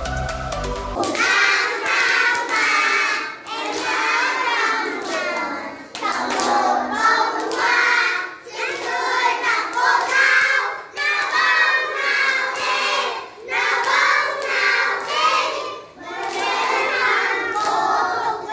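A group of young children singing together with a woman leading, clapping their hands along in a classroom song. An electronic music intro cuts off about a second in.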